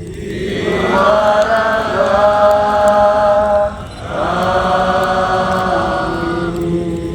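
A large group of voices chanting in unison, holding two long notes of about three seconds each with a brief break between them.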